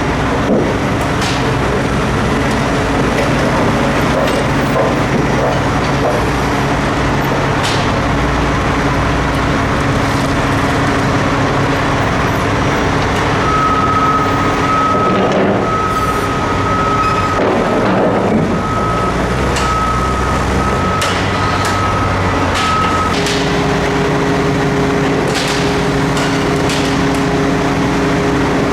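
Cat 6020 mining excavator's diesel engine running steadily as the machine travels, with occasional sharp clanks. For about ten seconds in the middle a warning beeper sounds in quick repeated beeps.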